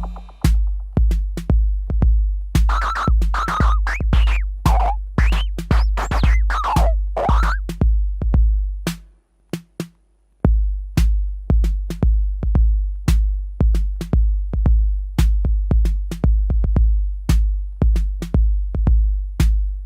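Behringer RD-8 analog drum machine playing an electro beat: a booming 808-style kick about twice a second with sharp hi-hat and percussion clicks on top. Pitched sweeps glide up and down over the beat for a few seconds early on. The beat drops out briefly about nine seconds in and then comes back.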